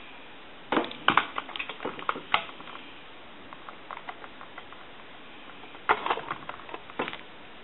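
Light clicks and taps from handling a small circuit board and hand tools on a workbench, in two short clusters: one about a second in and one near the end.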